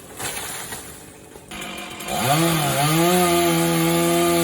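Chainsaw revving up about two seconds in, dipping briefly, then holding at a steady high speed.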